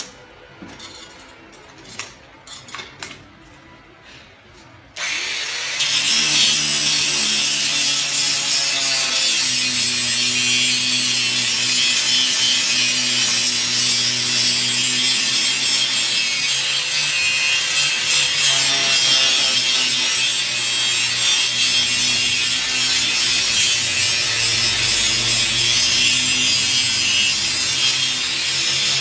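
Electric angle grinder working the end of a steel-pipe track rail. After a few handling clicks and knocks, the grinder starts about six seconds in and runs steadily under load to the end: a loud, continuous grinding hiss over a motor whine whose pitch wavers slightly as the pressure changes.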